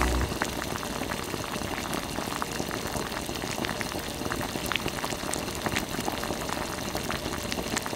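Water boiling in a small iron wok with tapioca pearls cooking in it, bubbling and popping steadily with many fine ticks.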